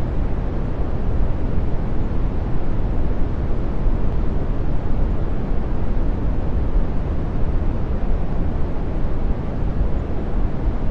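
Brown noise: a steady, deep, even rush of random noise, heaviest in the low end and fading off toward the highs, with no tones or breaks.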